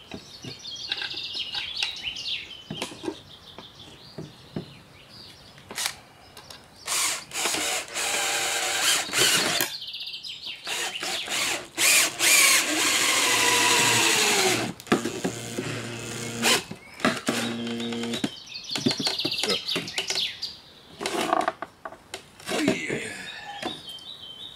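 Makita cordless drill running in several bursts as it bores a 4 mm pilot hole through a plate into a driftwood root. In the longest run its whine sags in pitch as the bit bites into the wood.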